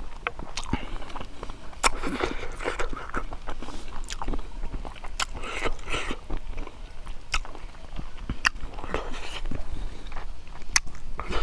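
A man chewing cooked pig leg and rice, close to the microphone: irregular wet smacks, lip clicks and chewing noises.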